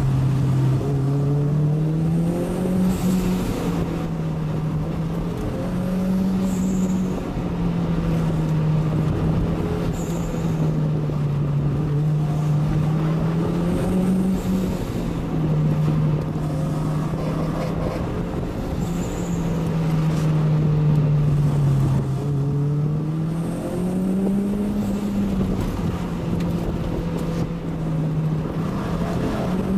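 1993 Toyota MR2's 2.0-litre turbocharged 3S-GTE four-cylinder heard from inside the cabin, held at steady revs under a winding descent. Its note rises and dips every few seconds, over a constant hum of road noise.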